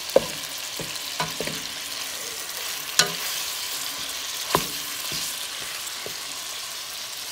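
Ground beef sizzling in a frying pan as a spatula breaks it up, with a steady hiss and a few sharp knocks of the spatula against the pan.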